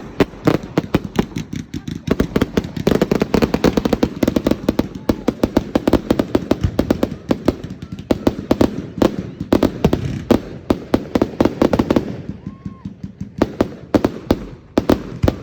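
Fireworks display: a dense run of rapid bangs and crackles, many per second, thinning to a few scattered bangs about twelve seconds in.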